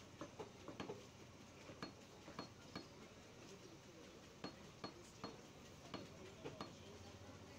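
Butcher's cleaver chopping beef into chunks on a wooden log chopping block: irregular, fairly faint sharp chops, one to three a second, some with a brief metallic ring from the blade.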